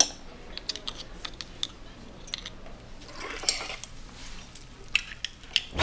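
Metal chopsticks and spoons tapping and clinking against ceramic noodle bowls, a scatter of light irregular clicks, the sharpest one right at the start, with a softer stretch of stirring about three seconds in.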